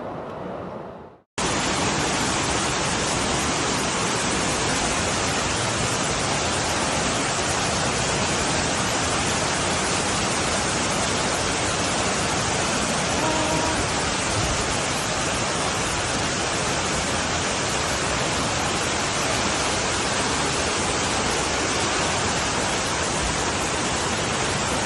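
Steady rushing floodwater, an even, unbroken roar that starts abruptly just over a second in.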